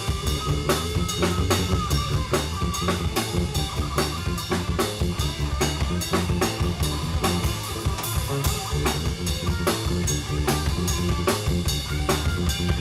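A live band playing, with the drum kit keeping a fast, steady beat of about four hits a second over low bass notes.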